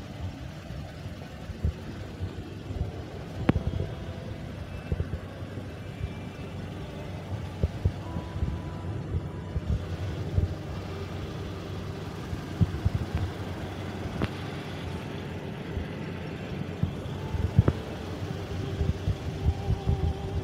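Pickup truck engines running, with a steady low rumble, small bumps of wind and handling on the phone microphone, and a few sharp knocks.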